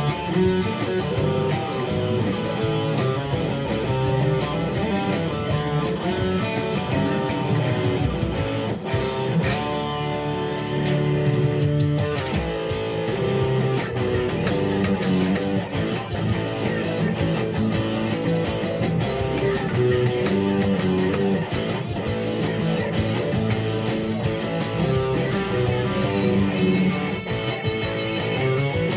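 Guitar music: a guitar cover of the song, with plucked and strummed guitar over a bass line, and no singing heard.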